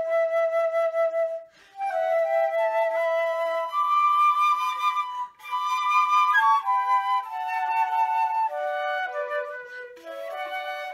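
Two concert flutes playing a slow melody in two-part harmony, in phrases broken by short pauses for breath about one and a half and five seconds in.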